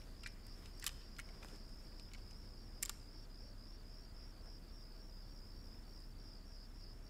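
Crickets chirping in a steady, pulsing high trill, with a few faint sharp clicks in the first three seconds.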